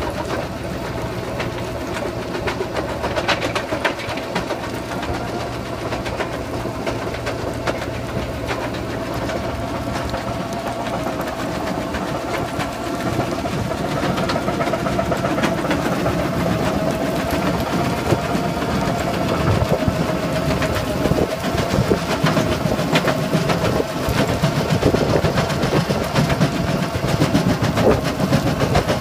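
Excavator-mounted Hartl HBC650 jaw crusher bucket crushing concrete rubble: a steady hydraulic drive hum and whine with the excavator's engine running under it, overlaid by constant irregular cracking and knocking of broken concrete. It grows somewhat louder about halfway through.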